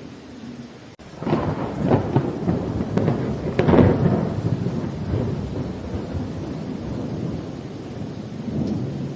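A thunderclap over steady rain: sharp crackles break in about a second in, peak a few seconds later, then roll off into a long low rumble that slowly fades.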